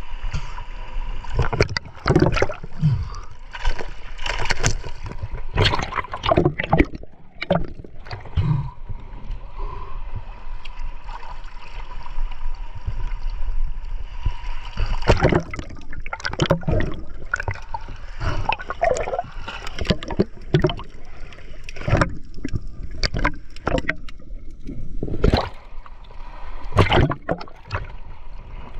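Sea water sloshing and splashing against a camera riding at the water's surface, in irregular bursts.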